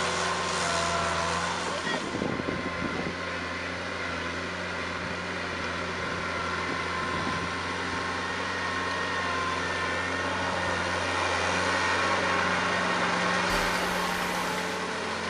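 Tractor engine running steadily under load while pulling a rotary tiller through wet, muddy paddy soil.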